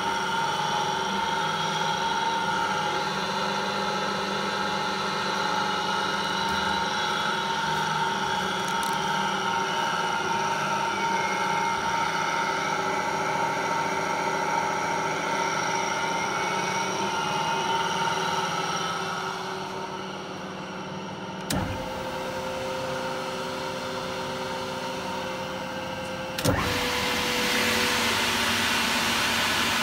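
Electric SEW variable-speed gear motor driving an industrial mixer, running with a steady whine whose tones shift in pitch as its speed handwheel is turned. About 20 s in it gets quieter; two sharp clicks follow about five seconds apart, and after the second the running sound is louder and hissier.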